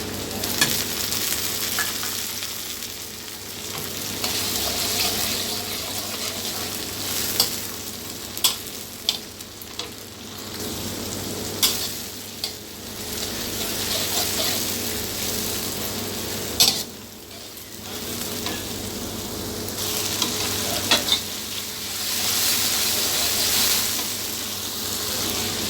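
Onions, ginger-garlic paste, green chillies and tomatoes sizzling in hot oil in a kadai while being stirred, with the spoon clicking and scraping against the pan every few seconds.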